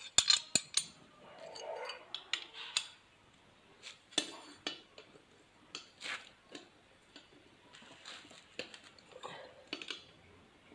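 Small metal parts and hand tools clinking, tapping and scraping as the bolts of a homemade arc-welding electrode holder are tightened. A quick run of sharp clicks comes at the start, then scattered taps and short scrapes.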